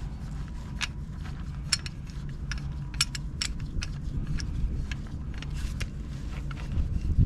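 Steel ball joint press parts and hand tools clinking and clicking against each other as they are handled, in irregular taps. A steady low rumble runs underneath.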